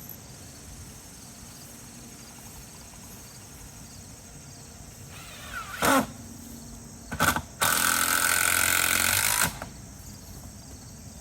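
Crickets and other field insects chirping steadily. Midway a rising sound swells into a short loud burst, then a second brief burst, and a loud stretch of noise lasting about two seconds that stops abruptly.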